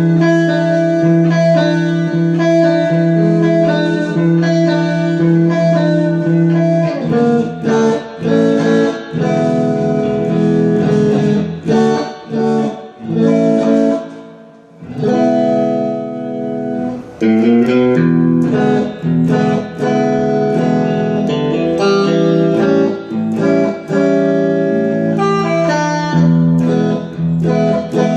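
Electric guitar played through a Fender Blues Junior tube combo amp, recorded on a phone: held chords, then shifting chords and blues phrases, with a short break about halfway through.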